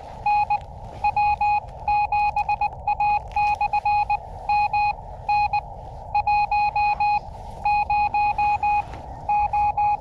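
Morse code (CW) from a ham radio transceiver's speaker: a single steady tone keyed on and off in dits and dahs over a constant receiver hiss.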